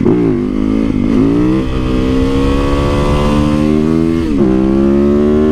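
Yamaha YZ450FX single-cylinder four-stroke engine, converted to a supermoto, pulling under hard acceleration. The pitch climbs steadily in each gear, with an upshift about a second in and another at about four seconds.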